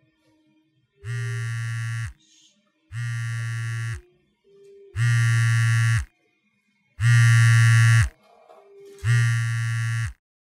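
A phone buzzing with an incoming call: five steady, harsh buzzes of about a second each, one every two seconds, louder toward the end.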